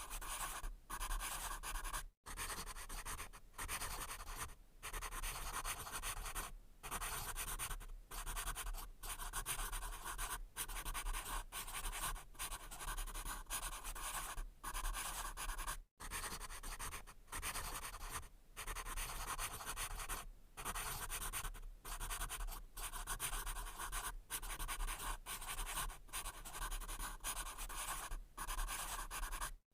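Pencil writing on paper: a steady scratchy rasp of the graphite dragging over the sheet, broken by short gaps every second or two as the pencil lifts between strokes or words. Twice the sound cuts out completely for an instant.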